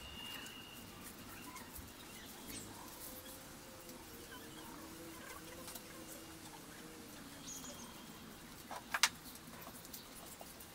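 Dry palm-leaf strips rustling and crackling faintly as they are woven by hand, with faint bird calls in the background. A sharp double click about nine seconds in is the loudest sound.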